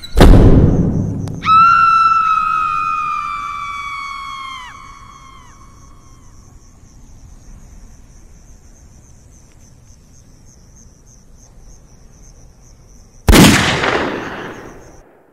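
A sudden loud boom dying away over a second or so, then a held high ringing tone that sinks a little and fades over about three seconds; a second loud boom comes near the end, and a faint steady high pulsing trill runs underneath until the sound cuts off abruptly.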